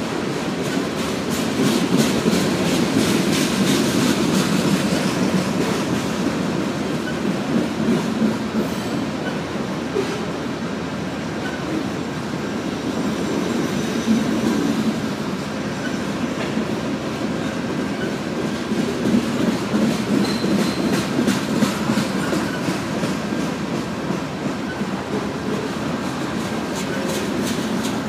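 Loaded covered hopper cars of a BNSF grain train rolling past: a steady rumble of steel wheels on rail, with runs of clickety-clack as the wheel trucks cross rail joints.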